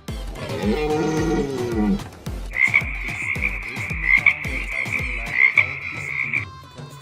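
Animal sounds over music with a steady beat: a pitched call that rises and then falls, ending about 2 s in, then a steady high trill that lasts about four seconds.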